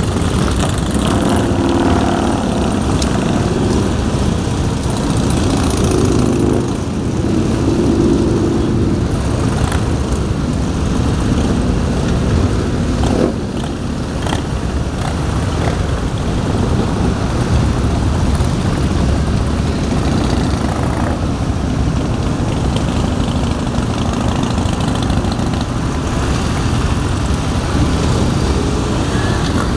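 A long column of large touring motorcycles riding past in a steady stream, their engines running continuously. In the first ten seconds or so, single bikes' engine notes stand out briefly as they go by.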